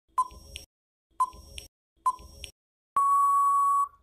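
Countdown timer sound effect: three short beeps about a second apart, then a longer steady beep of about a second that signals time is up.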